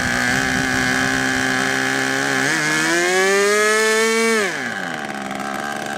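Small two-stroke gas engine of a radio-controlled boat running out of the water, idling steadily, then revving up over about two seconds and dropping quickly back to idle.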